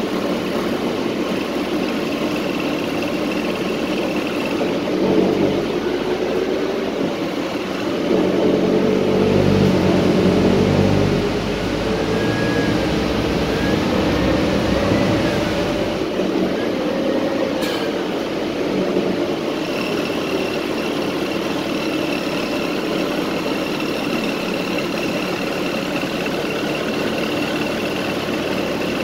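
Inside a city transit bus under way: the engine and drivetrain running with road noise, growing louder for a few seconds about a third of the way in, then a whine that rises and falls in pitch in the middle. A steady high whistle sounds early on and again through the last third, and there is one sharp click just past the middle.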